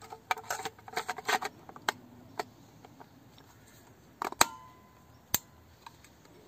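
Metal clicks and rattles from a Salyut medium-format film magazine being handled as its film insert is slid in and seated: a quick flurry of clicks first, then a few single clicks. A loud double snap about four seconds in rings briefly, and one more sharp click follows a second later.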